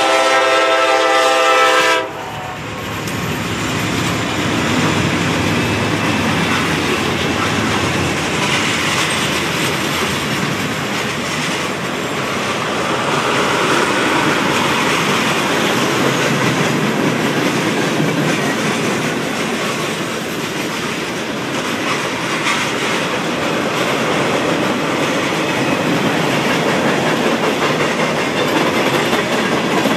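A freight locomotive's horn sounds and cuts off about two seconds in. After it, the freight cars roll steadily through the grade crossing with wheels clacking over the rail joints.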